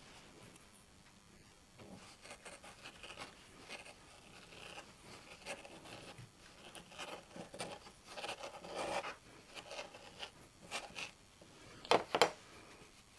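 Circle cutter blade scraping round through a sheet of 3 mm felt, in faint, irregular strokes. Two sharp clicks near the end.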